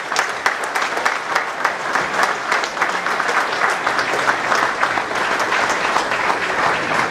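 Audience applauding: many hands clapping at once, a dense and even run of claps.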